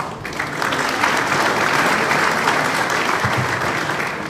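Audience applause: dense, steady clapping from many hands.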